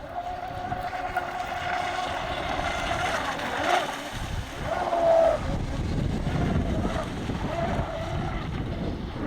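Electric RC boat's motor whining in a steady tone that swells and dips as the throttle is eased on and off, sounding to its drivers like the LiPo battery's low-voltage cutoff is limiting power. A low rumble joins about four seconds in.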